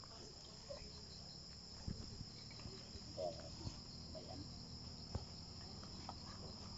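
Steady, high-pitched chirring of insects, with a few faint knocks and shuffles.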